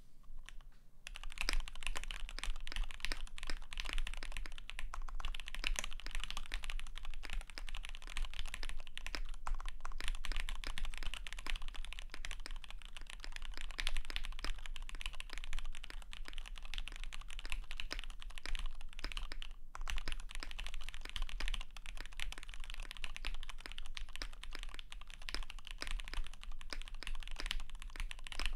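Steady typing on a KBD75 v3.1 custom mechanical keyboard with lubed Gateron X R2 switches, a polycarbonate plate and PBT keycaps: a dense stream of keystrokes starting about a second in, with one brief pause about two-thirds of the way through.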